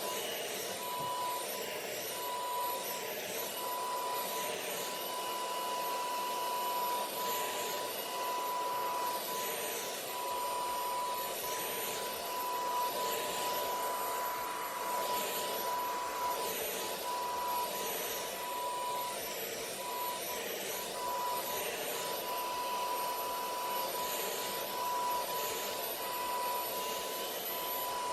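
Hoover Power Scrub Elite carpet cleaner running steadily while shampooing carpet: its motor drone with a steady high whine.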